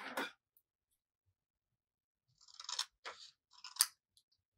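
Scissors snipping through a sheet of pink paper, three short crisp cuts in the second half, after a brief handling noise at the start as the scissors are picked up off the table.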